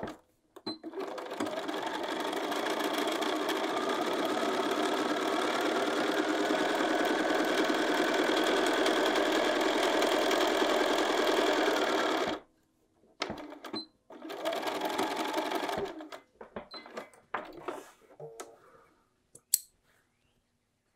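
Bernina sewing machine edge-stitching along a fabric pocket edge, running steadily for about eleven seconds and then stopping sharply. A second, shorter run follows, then a few light clicks.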